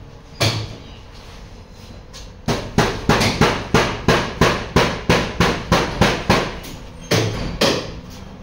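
Hammer blows in quick succession, about three to four a second for around four seconds, after a single blow about half a second in and followed by two more near the end.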